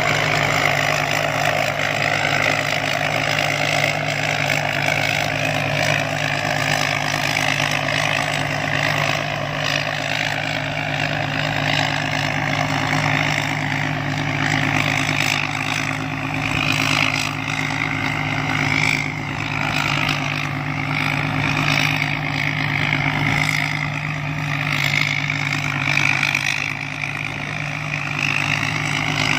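Rice combine harvester's diesel engine running steadily at a constant speed.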